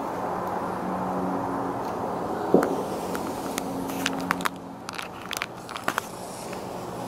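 A swamp wallaby's paws and muzzle knocking and tapping against the glass of its enclosure: one sharp knock about two and a half seconds in, then a run of quick clicks and taps, over a steady background hum.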